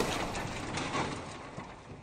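Intro sound effect of a heavy crash dying away: a clattering noise that fades steadily, with scattered sharp clicks.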